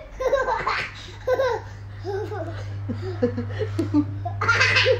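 Toddler laughing in repeated short bursts and giggles, with a steady low hum underneath.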